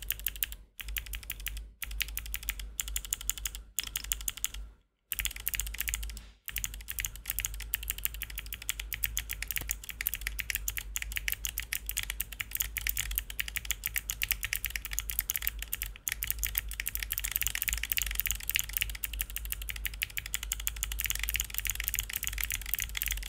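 Typing on a mechanical keyboard fitted with Gateron Melodic clicky switches, whose click bar clicks on both the press and the return of each key. Fast keystrokes with a few brief pauses in the first several seconds, then continuous typing.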